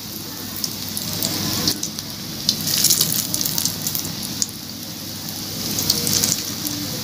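Potato-and-besan strips deep-frying in hot oil in a kadai: a steady sizzle with scattered crackles and pops.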